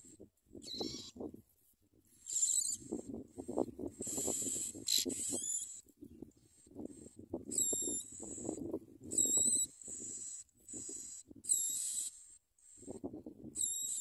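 Bar-winged prinia nestlings begging with high, thin calls in repeated bouts of about half a second to a second, some with wavering, rising pitch. Scratchy rustling runs underneath.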